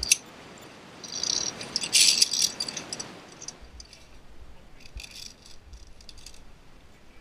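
Metal via ferrata carabiners clinking and rattling against each other and the steel safety cable in irregular jangling bursts, loudest about two seconds in and again around five seconds in.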